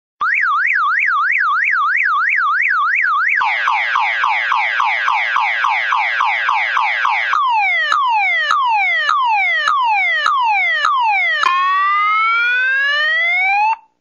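Electronic car alarm siren cycling through its tones. First a fast up-and-down warble, then rapid falling chirps about four a second, then slower falling whoops, then a long rising whoop that cuts off just before the end.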